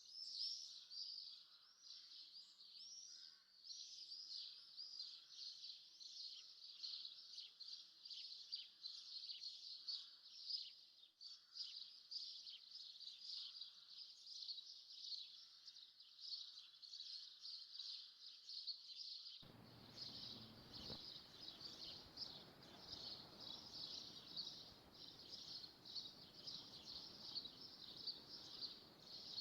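A dense chorus of small birds chirping continuously, faint and unbroken. About two-thirds of the way through, a faint steady hiss joins it.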